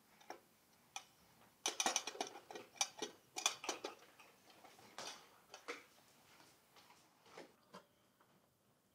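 A small metal cash box wiped with a cloth and handled: faint, irregular rubbing with light clicks and taps, thickest a couple of seconds in and dying away near the end.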